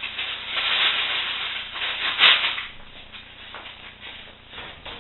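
Crackly rustling noise, loudest about two seconds in, then dying down to a faint hiss.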